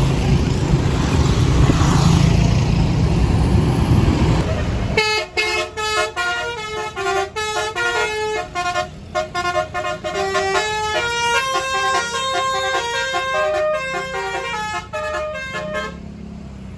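A loud bus engine rumbles for the first few seconds. Then a bus's basuri telolet musical horn plays a multi-note tune for about eleven seconds, its notes stepping up and down like a melody, before cutting off.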